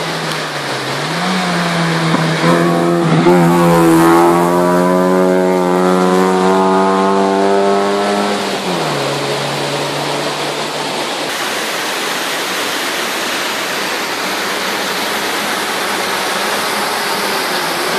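Hillclimb race car engine running hard at high revs, then dropping in pitch about nine seconds in and fading into a steady rushing noise.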